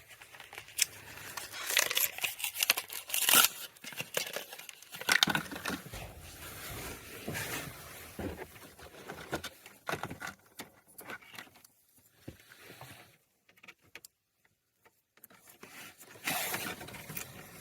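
Scattered clicks, scrapes and rustles of hands working plastic parts while fitting a new 7443 bulb into a car tail-light socket and refitting it, with a short gap of silence about fourteen seconds in.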